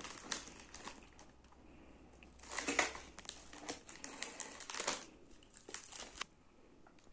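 Plastic snack wrappers crinkling in short spells as packets in a bowl are handled and a wafer bar is pulled out, louder about two and a half seconds in and again around five seconds.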